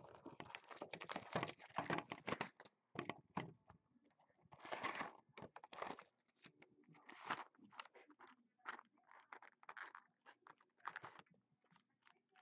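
Plastic shrink wrap being torn and crinkled off a cardboard trading-card hobby box, then the box handled and opened: irregular crackling and rustling in quick bursts.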